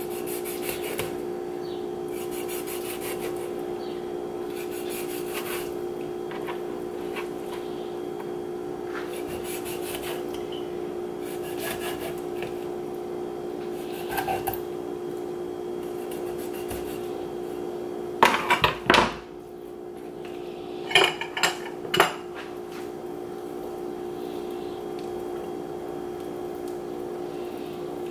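Chef's knife scoring a whole raw fish on a plastic cutting board: light repeated scraping and slicing strokes, then a few loud, sharp knocks against the board about two-thirds of the way in. A steady hum runs underneath.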